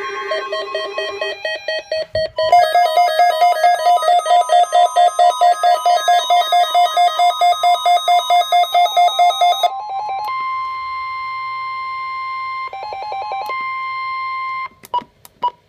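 Electronic alert tones of a NOAA Weather Radio required weekly test signal. A steady tone is followed by a rapidly pulsing beep of about four beats a second for some seven seconds, then a steady high tone for about four seconds, ending in a few short clicks.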